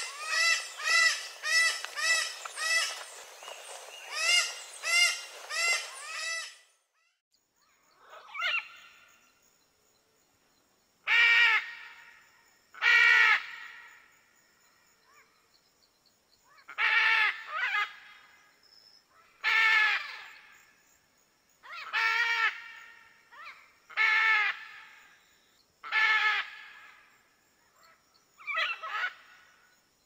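Parrot calls: for the first six seconds or so a rapid series of short, repeated squawks about two a second over a background hiss, which cuts off. Then loud, harsh single squawks follow roughly every two seconds.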